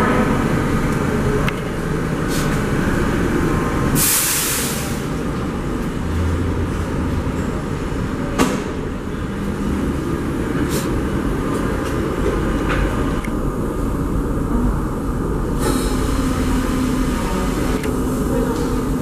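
R32 subway train standing at the platform with a steady low rumble, a burst of air hissing about four seconds in and a sharp click about eight seconds in.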